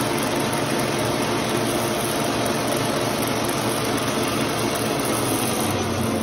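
Small metal lathe running steadily with a steady motor hum, its cutting tool starting to bite into a Monel trumpet piston; the cut is uneven, one side cutting and the other not.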